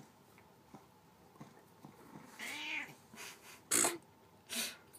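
Bengal cat giving one short meow that rises and falls about two and a half seconds in, followed by a few short breathy sounds.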